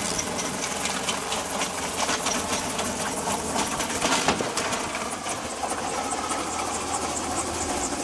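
Small helicopter's engine and rotor running on the ground with a rapid, even mechanical chatter, as the machine rocks on its skids; a sharp knock stands out a little after four seconds in.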